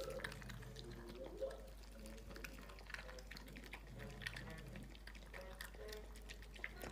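Corgi puppy eating dry kibble from a ceramic bowl: faint, irregular crunching and small clicks of kibble against the bowl.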